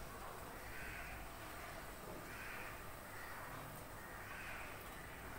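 A crow cawing faintly, one call about every two seconds, three times.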